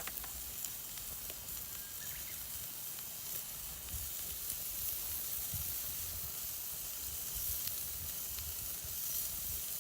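Meat sizzling on a charcoal grill: a steady hiss with scattered small pops and crackles.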